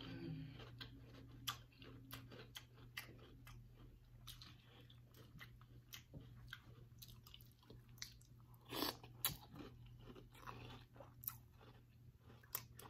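Mouthfuls of Cap'n Crunch with Crunch Berries cereal chewed with the mouth closed: faint, irregular crunches, with a louder cluster about nine seconds in.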